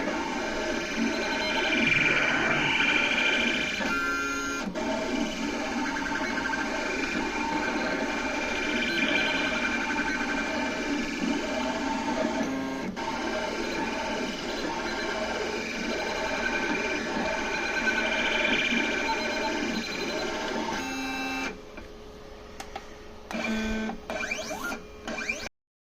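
Pen plotter's stepper motors whining and buzzing as the machine draws, the tones shifting as it moves along the curves. About 21 seconds in it drops much quieter, leaving a few short whines and clicks, then cuts off.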